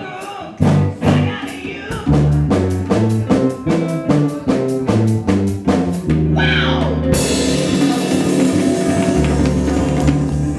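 Rock music: fast, even drum beats over bass and guitar, a short sung line about six seconds in, then a held cymbal wash under sustained bass notes.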